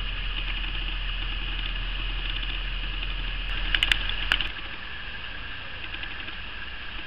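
Outdoor garden ambience: a steady high-pitched hiss, with a few sharp clicks about four seconds in, just before a low hum drops away.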